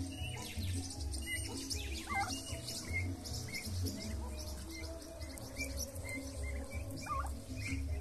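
Young turkey poults peeping, short high chirps repeated irregularly about once or twice a second, over background music with a steady low beat.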